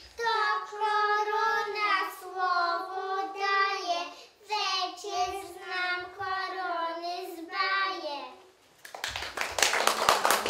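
Young children singing a song in Polish. The song ends about eight and a half seconds in, and applause breaks out a moment later.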